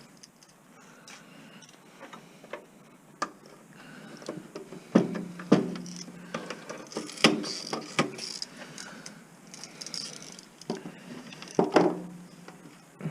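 Scattered clinks and knocks of metal and plastic parts being handled while an old stereo is taken apart for scrap, with a few sharper knocks, some ringing briefly.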